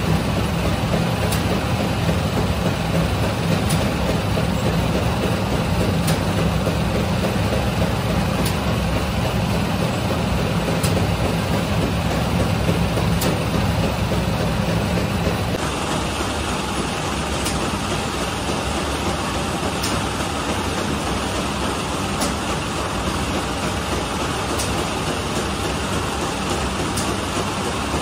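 Automatic conveyor bread-baking machine running: a steady mechanical hum and rumble with faint regular clicks about every two and a half seconds. The low hum weakens about halfway through.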